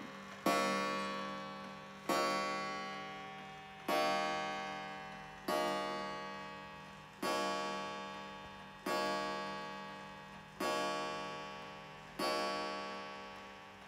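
Antique Waterbury cathedral mantel clock striking the hour at eleven: its hammer hits the coiled wire gong about once every 1.7 seconds. Each stroke rings out with a bright metallic tone and fades away before the next, eight strokes here.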